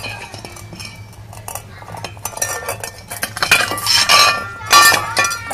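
A puppy eating from a stainless steel bowl: the metal bowl clinks and rattles against the concrete floor in quick irregular ticks, turning into louder, ringing clanks and scrapes from about three and a half seconds in.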